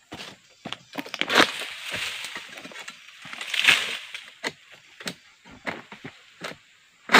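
Freshly sharpened egrek, a pole-mounted sickle, cutting into the woody frond stalk of an oil palm: a series of sharp cracks and chops. Palm leaves rustle loudly about a second and a half in and again near four seconds.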